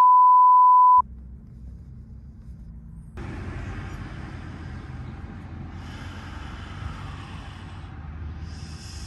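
A loud, steady high beep tone cuts off about a second in. It gives way to a low rumble of road traffic, which broadens into fuller traffic noise from about three seconds in.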